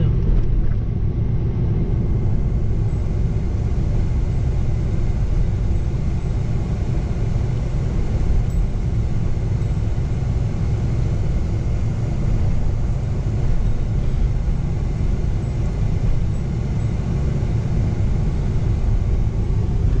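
Steady low rumble of a car driving along a paved road, engine and tyre noise heard from inside the cabin.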